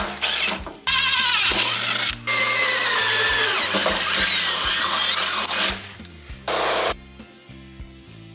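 Cordless drill boring mounting holes through a snowmobile's metal tunnel. It runs in several starts and stops, the longest about three and a half seconds, and its motor whine wavers in pitch as the bit bites. A short last burst comes at about six and a half seconds.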